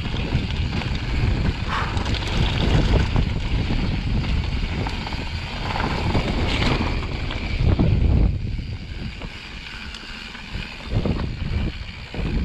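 Mountain bike riding down a dirt trail: wind rumbling on the camera microphone over tyre noise and the rattle of the bike, with scattered knocks. It eases off from about eight seconds in, and the knocks pick up again near the end.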